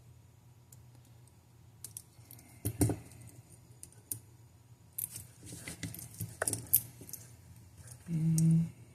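Scattered light clicks and taps of small metal tools and watch parts being handled during watch assembly, with one sharper tap about three seconds in and a run of small clicks around the middle.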